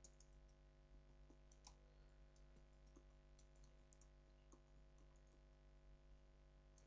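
Faint, irregular keystrokes on a computer keyboard during a typing test, over a steady low hum.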